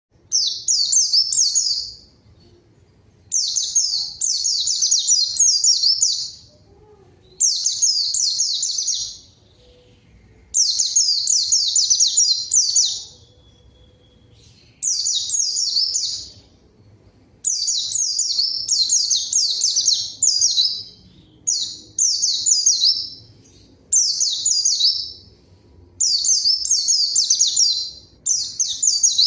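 White-eye (pleci) singing in vigorous full song (gacor): rapid, high-pitched twittering phrases of two to three seconds each, about ten of them separated by short pauses.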